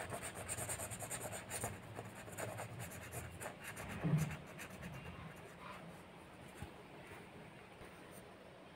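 Felt-tip sketch pen scratching faintly across card paper in quick colouring strokes. The strokes are busiest in the first few seconds and grow fainter after about five seconds.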